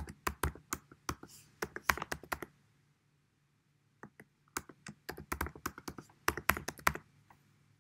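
Keys typed quickly on a computer keyboard, entering a password in two runs of rapid clicks with a pause of about a second and a half between them.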